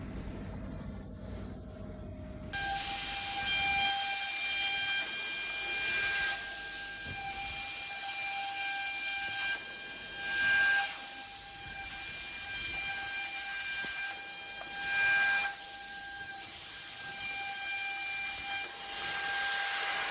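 Rotary CNC router's spindle starting about two and a half seconds in and running with a steady high whine over a loud hiss as its milling bit cuts a plywood rotary die board. The hiss swells every few seconds, and the sound cuts off suddenly at the very end.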